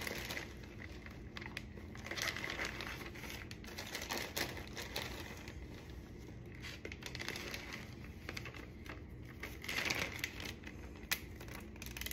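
Intermittent crinkling and rustling of a quart-size plastic Ziploc bag as shredded lettuce is packed into it, with a few light ticks.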